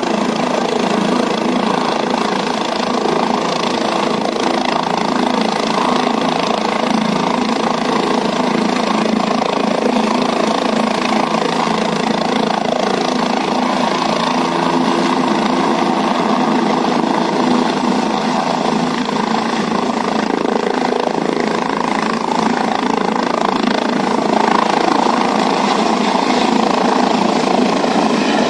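Helicopter engine and rotor running loud and steady, getting a little louder in the last few seconds as the helicopter lifts off and flies away.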